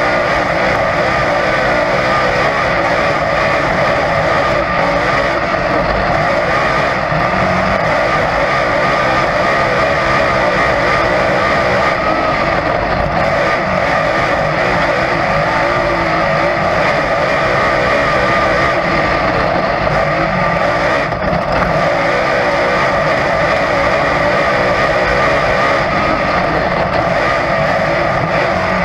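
Dirt-track race car's engine running hard at racing speed, heard from inside the cockpit as a loud, steady drone with no let-up.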